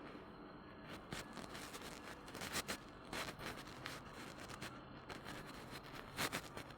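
Village ambience: a faint steady background with irregular light scrapes and clicks, two of them louder, about two and a half and six seconds in.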